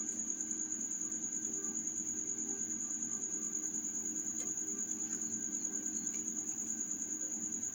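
A cricket trilling without a break: a high, evenly pulsing chirp several times a second, over a low steady hum.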